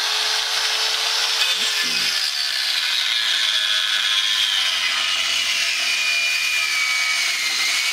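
Handheld angle grinder cutting metal: a steady high whine over a gritty hiss, the whine slowly sinking in pitch.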